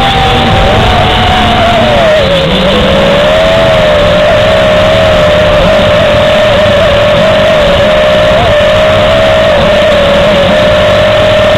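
Electric motors and propellers of a small remote-controlled aircraft carrying the camera, a loud steady whine with rushing air noise. The whine's pitch drops about two seconds in and then holds with slight wavers, as the throttle eases.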